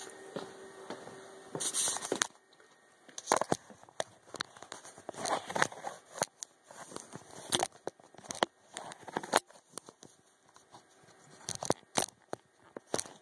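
Handling noise from a handheld camera being moved and set back in place: irregular clicks, knocks and rustling, with sharper knocks scattered through.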